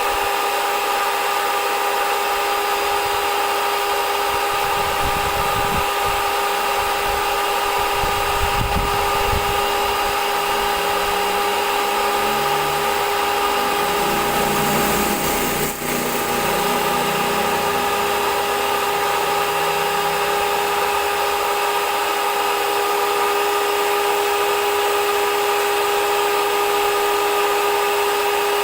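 A small electric motor running steadily at one constant pitch, with a brief dip in level a little past halfway.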